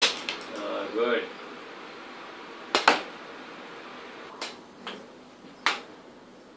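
Badminton racket striking a shuttlecock: a handful of sharp, light hits, the loudest a quick double knock about three seconds in.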